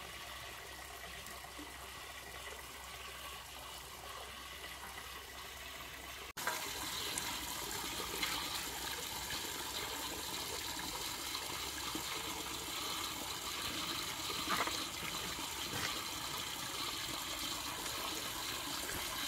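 Running water, a steady splashing hiss that jumps louder at a cut about six seconds in.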